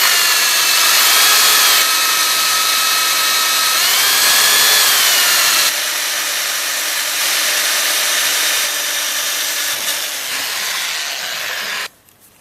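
Electromagnetic drill running, boring a 6 mm pilot hole into a tank wall. Its motor whine wavers in pitch a couple of times as the bit loads up, and the drill cuts off suddenly near the end.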